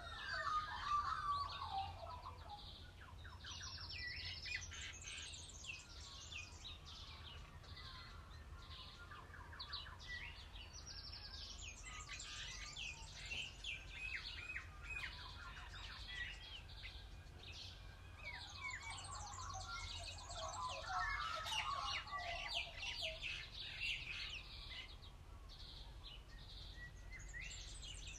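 A chorus of wild birds singing: many quick high chirps and trills overlapping throughout, with louder, lower warbling calls about a second in and again around twenty seconds in. A faint steady low rumble runs underneath.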